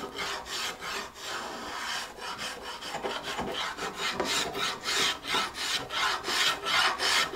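Spokeshave shaving the wood of a guitar neck by hand: a quick series of short scraping strokes, about three a second, growing louder in the second half.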